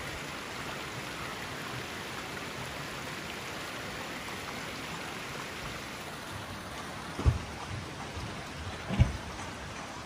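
Steady rushing of running water, where people are panning for gold. Two dull thumps come near the end.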